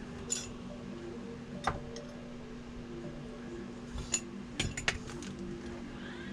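Scattered sharp clicks and clinks of small hard plastic and metal parts being handled on a radio-controlled model truck: a few single ticks, then a quick cluster of three or four a little past the middle.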